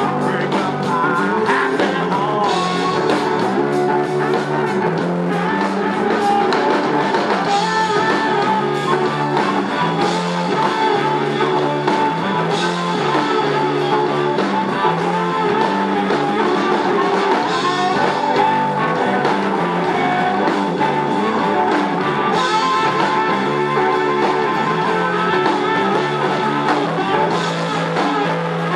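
Live electric blues band playing. An electric lead guitar with gliding notes runs over a repeating bass line and drums, on homemade guitar and bass built from car mufflers.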